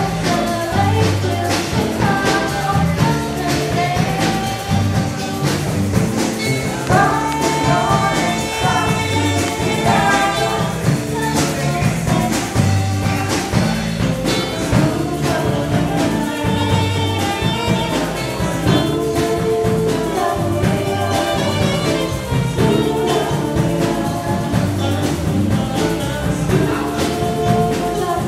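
A live band playing a smooth, jazz-tinged pop song, with a steady repeating bass line under guitar, a horn and a woman's singing voice.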